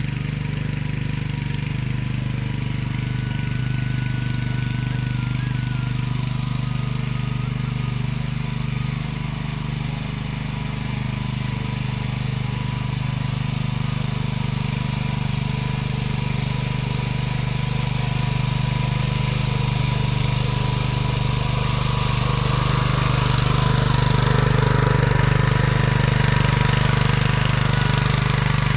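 Small engine of a farm machine, likely a power tiller ploughing the field, running steadily at a constant low pitch, growing somewhat louder and rougher over the last few seconds.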